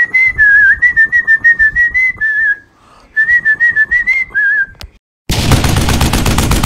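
A whistled tune, wavering in pitch, in two phrases with a short break between them, over a steady clicking beat. It stops, and about five seconds in a rapid machine-gun rattle sound effect takes over.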